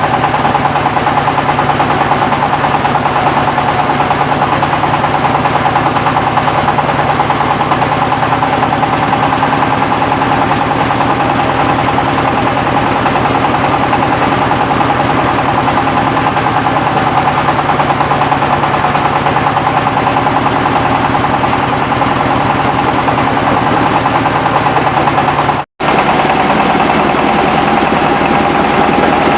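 Mobile rice-milling machine running steadily under engine power, with a fast, dense rattle over a steady hum. The sound drops out for an instant near the end and resumes at a slightly different pitch.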